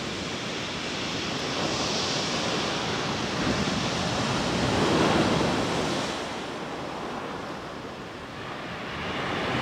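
Rough sea surf breaking on a shingle beach, with wind. The surge swells to a peak about five seconds in, falls away, then builds again near the end.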